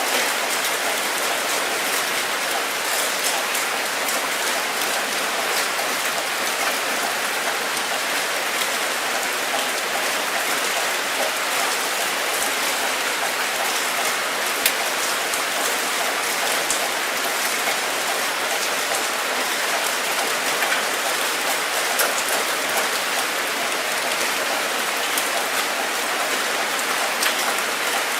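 Steady rainfall, a dense even hiss with scattered sharper taps of individual drops.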